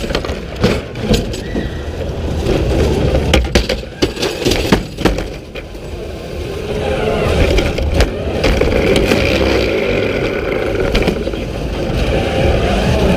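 Competition robot heard through its own chassis-mounted camera, jolting over a field obstacle with a run of clattering knocks and rattles for the first several seconds. From about halfway, its drive motors and gearboxes whine steadily as it drives on over the carpet.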